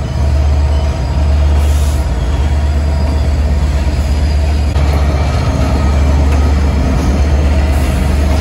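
Diesel locomotive running: a steady deep rumble.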